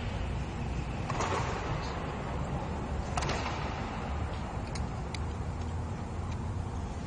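Steady room noise of a large sports hall with a few short, sharp clicks or snaps scattered through it.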